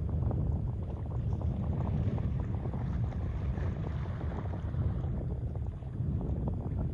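Steady low rumble of a small motorboat under way, with wind buffeting the microphone.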